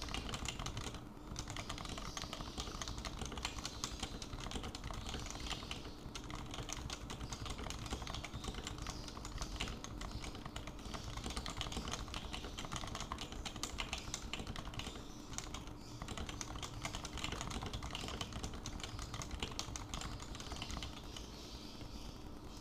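Fast, continuous typing on an HHKB Pro 2 keyboard with 45 g Topre electrostatic capacitive switches: a dense stream of keystrokes with a few short pauses.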